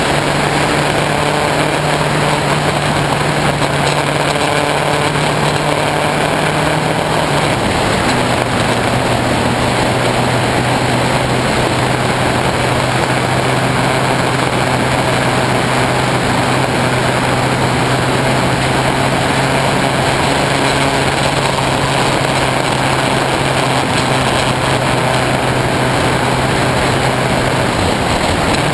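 Honda CBF600S inline-four engine running on the move, its note heard through a GoPro's waterproof case under a dense, noisy rush of wind and road noise that the uploader puts down to the case itself. The engine note steps down about seven seconds in and dips again near the end.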